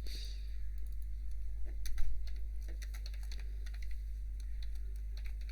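Typing on a computer keyboard: scattered key clicks, with a quick run of them about two seconds in, over a steady low electrical hum.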